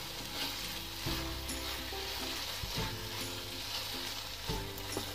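Wooden spatula stirring thick beetroot halwa in a nonstick pan, a soft sizzle and scraping as the nearly dry mixture cooks, over soft background music.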